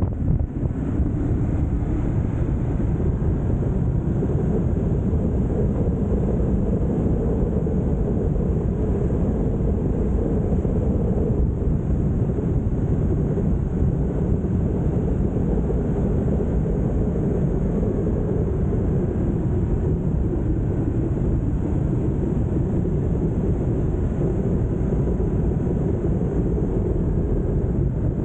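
Ducati Multistrada motorcycle cruising at a steady speed: engine and wind noise blend into a steady low rumble.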